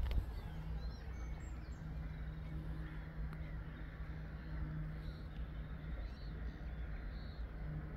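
A flock of waterbirds calling, with short scattered calls rising and falling over a steady low hum and a low rumble.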